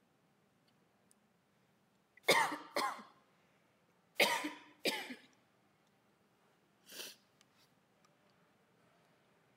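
A person coughing: two double coughs about two seconds apart, then a fainter single cough about seven seconds in.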